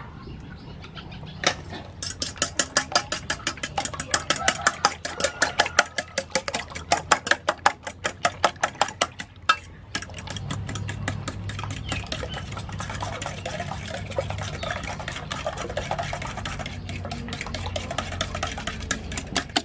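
Eggs being beaten with a fork in a stainless steel pot, the fork clicking rhythmically against the metal about four or five strokes a second. From about halfway through the strokes come quicker and softer, over a low steady hum.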